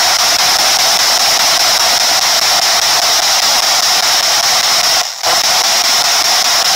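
P-SB7 spirit box sweeping through radio stations, giving out a loud, steady hiss of static, with a brief dropout about five seconds in.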